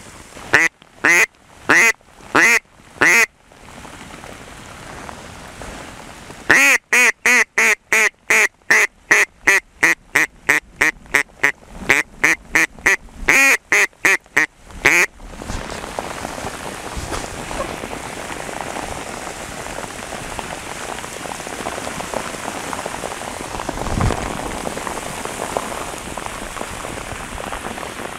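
Mallard duck call blown in hen-mallard quacks: a short run of about five, then a long steady run of about 25 at roughly three a second. After the calling stops, heavy rain drums on a canvas rain cape, with one low thump about 24 seconds in.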